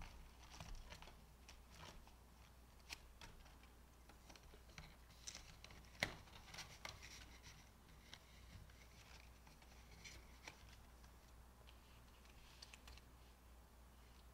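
Faint rustling of paper banknotes and clear plastic binder pockets being handled, with a few soft clicks, the sharpest about three and six seconds in.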